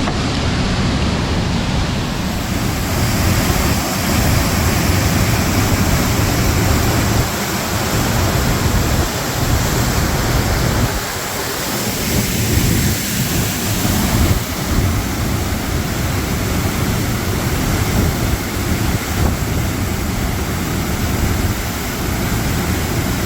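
Belye Mosty waterfall rushing: a loud, steady noise of falling water with a low rumble that dips briefly about eleven seconds in.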